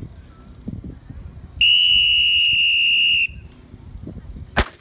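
A long, steady high-pitched signal tone sounding for about a second and a half, then about a second later a single sharp starting-pistol shot that starts the race.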